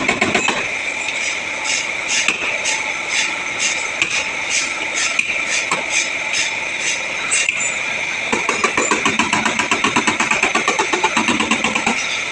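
A machine running steadily with a high, even whine and a fast, regular pulsing that grows more pronounced in the last few seconds.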